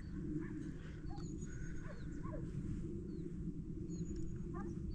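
A few faint, scattered barks from hunting dogs, over a steady low rumble.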